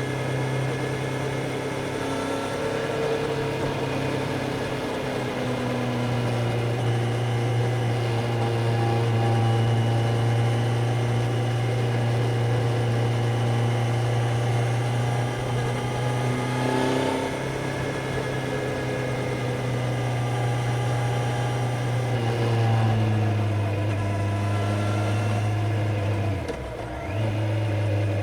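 Kawasaki Z900's inline-four engine and exhaust under way, the engine note held fairly steady with slow rises and falls in pitch. Near the end the note briefly drops off, then picks up again.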